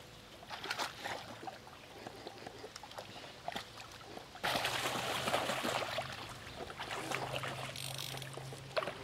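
River water running and splashing around an angler wading in the current. It gets much louder and fuller about four and a half seconds in, with a low steady hum underneath.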